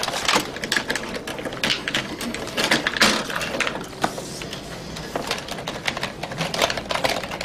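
Computer keyboard being typed on rapidly: a dense, uneven clatter of key clicks.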